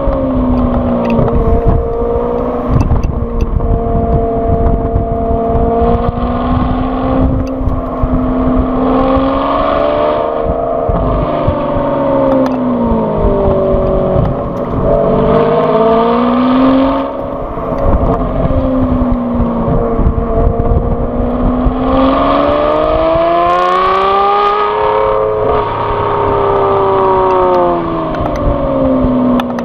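Exhaust of a 2014 Aston Martin V12 Vantage S with VelocityAP's Power Pack modification, heard close up at the rear of the car while it is driven: the V12's revs rise and fall again and again under throttle and lift-off. Wind buffets the microphone with a rough low rumble underneath.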